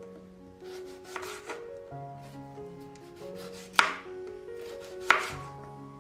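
Knife chopping on a cutting board: four separate strokes, the loudest about four seconds in and another a second later. Soft background music plays underneath.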